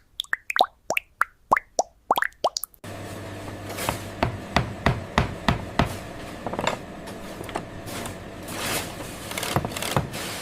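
A rapid series of liquid plops, like drops falling into water, each a short gliding blip, about four a second. About three seconds in, a steady machine hum starts under them, and the plops carry on over it.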